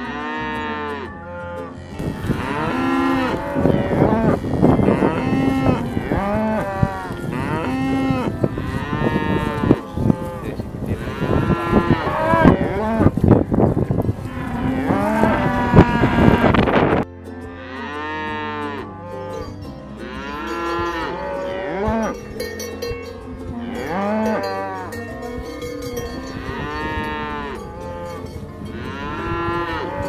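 Cattle mooing over and over, many calls overlapping, louder in the first half. After an abrupt cut a little past halfway the moos go on more sparsely, with cowbells clanking.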